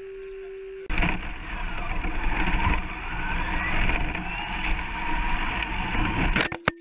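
Brushless 1/10 scale 4x4 RC short course truck heard from on board: a steady hum while it sits still, then about a second in it launches with a sudden loud rush of tyre and road noise, the motor's whine rising as it speeds across tarmac. Near the end come sharp knocks.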